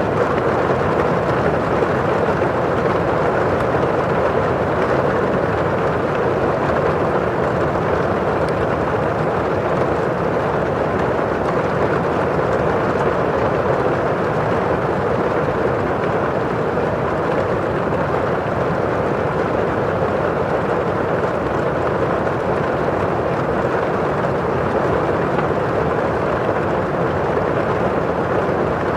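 Steady rain on a window pane and falling outside, an even, unbroken wash of sound with no single drops or other events standing out.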